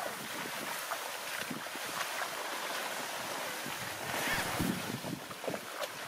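Plastic tarp loaded with rice sheaves being dragged over rice stubble: a steady rustling, scraping hiss of plastic and dry straw, with a few heavier scuffs about four and a half seconds in.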